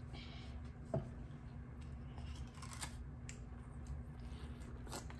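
Close-up eating sounds of frozen popsicles: scattered crisp clicks and crunches of ice being bitten and sucked, with a soft knock about a second in.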